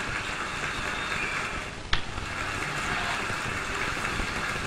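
Stadium crowd noise, a steady low hubbub, with one sharp click about two seconds in.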